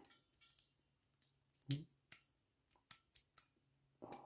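Faint, scattered clicks of hand crimping pliers working a terminal ferrule onto a wire end. One sharper click comes about one and a half seconds in, with a few softer ticks after it.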